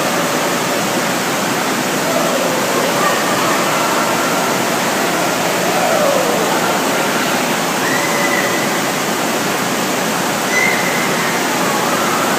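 Steady rush of running water with faint, distant voices underneath.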